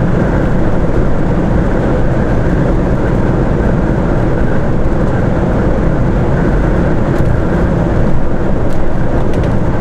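Steady engine and road noise inside the cab of a heavy goods truck cruising at motorway speed on active cruise control.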